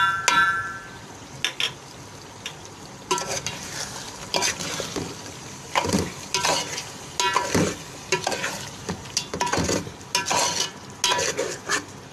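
Spatula stirring a thick chicken and potato masala in a cooking pot: irregular scrapes and clinks against the pot, thickening after about three seconds, over a low sizzle. A single ringing clank comes right at the start.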